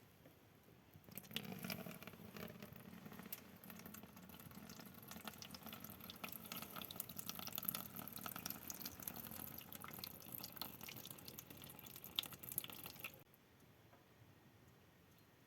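Water running and splattering, with fine drips and crackles, for about twelve seconds before stopping suddenly.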